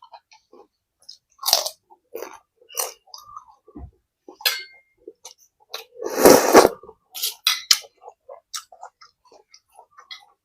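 A person chewing food close to the microphone, with scattered wet smacks and clicks of the mouth and one louder, longer noisy burst about six seconds in.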